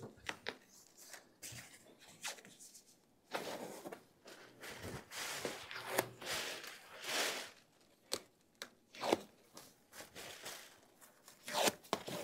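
Packing tape being peeled off a machine's housing while its loose plastic wrap rustles, in irregular tearing swells with small clicks and short pauses between pulls.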